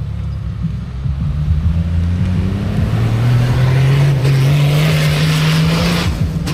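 A full-size 4x4 SUV's engine accelerating hard on a loose dirt course, its revs climbing steadily over several seconds. Its tyres on the loose dirt add a hiss that is loudest near the end.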